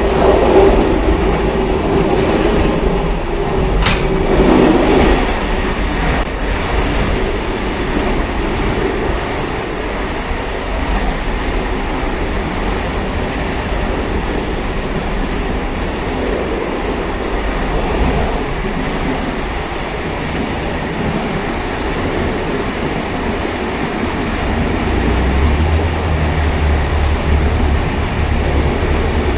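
Railcar running along the track: a steady rumble and rail noise, with a short sharp click about four seconds in and a low hum coming in near the end.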